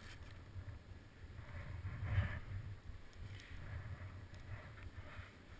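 Skiing or riding edges scraping over snow in a run of short turns, with a low wind rumble on the action camera's microphone.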